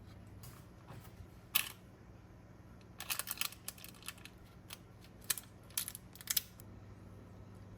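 A run of sharp clicks and light taps, several close together about three seconds in, over a low steady hum.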